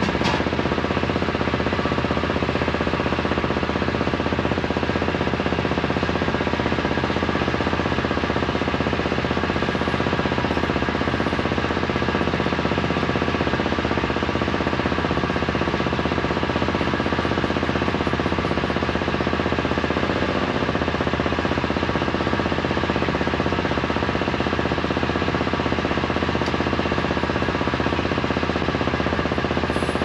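A boat engine running steadily on board, an even mechanical drone that holds the same level and pitch throughout.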